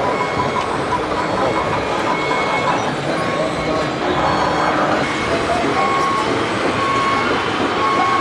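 Reversing beeper sounding in repeated short beeps over a steady mechanical din. The beeps start about halfway through.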